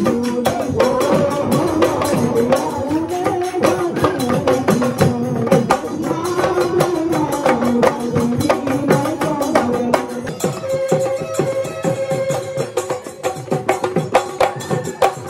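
Live Assamese folk music: a dhol beaten in rapid, dense strokes, with a pitched melody weaving above it.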